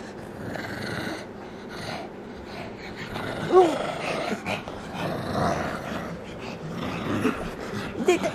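Pugs growling in play and breathing noisily as they mouth and tug a rubber ball toy, with a short whine-like cry about three and a half seconds in.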